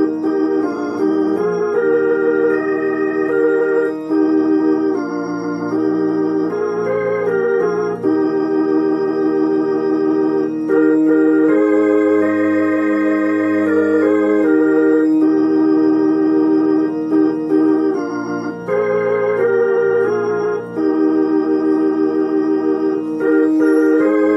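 Roland HP 704 digital piano set to an organ voice, playing a gospel hymn in sustained chords. The held notes waver with vibrato, and the melody moves above changing bass notes.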